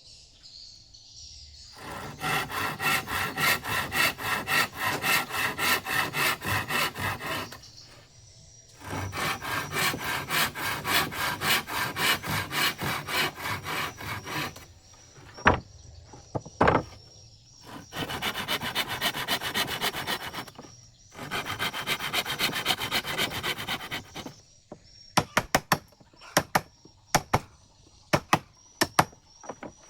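Hand saw cutting wood in four bursts of quick back-and-forth strokes, about three or four a second. Two loud knocks fall in the middle, and a run of sharp taps comes near the end.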